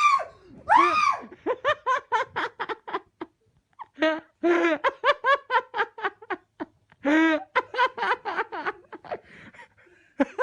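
A brief high-pitched shriek, then several bouts of rapid, high-pitched laughter.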